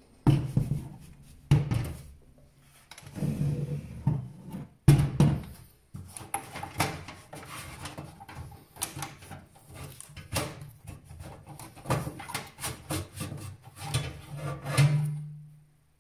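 A hard drive being worked loose and pulled out of a PC case's drive bay by hand: repeated knocks, clicks and scraping of metal and plastic.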